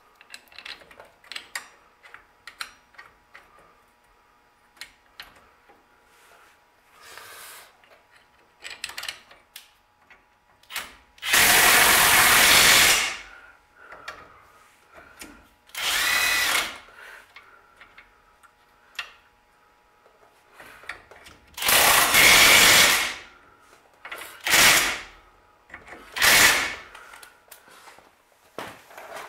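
Power drill with a socket extension spinning in the bolts that hold the brake caliper bracket and bearing cover to the rear axle end, in five short runs in the second half, the longest about two seconds. Before that, light clicks and taps of parts and tools being handled.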